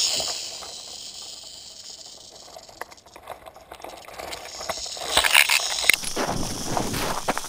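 Prairie rattlesnake rattling its tail, a continuous high dry buzz, its defensive warning at the camera pole held right at its coils. About six seconds in the pole is jolted and rough scraping and rustling take over.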